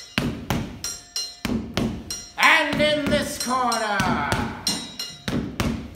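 Punches smacking into leather focus mitts in a quick, steady rhythm of sharp hits, with voices calling out over them about halfway through.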